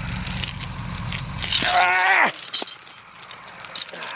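Heavy steel tow chain clinking and rattling as its links are gathered up and hoisted, with a brief pitched call that falls in pitch about halfway through.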